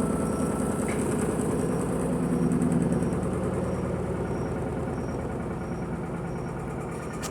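Electrolux Perfect Wash 16 kg top-loading washing machine in its spin cycle with sneakers in the drum, running noisily as the machine shakes. The noise slowly fades.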